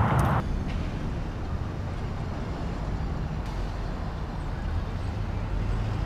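Outdoor traffic background: a steady low rumble of vehicles with hiss. A louder rushing noise cuts off suddenly about half a second in.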